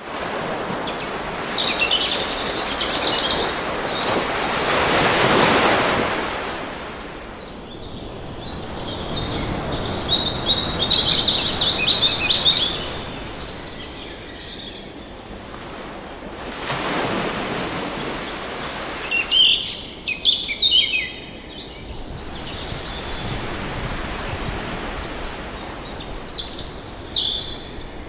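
Ocean waves washing onto the shore in slow swells, with birds chirping and singing over them in several short bouts.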